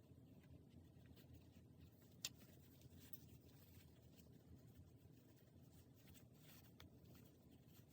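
Near silence: faint room tone with a few soft handling ticks and one sharp click about two seconds in.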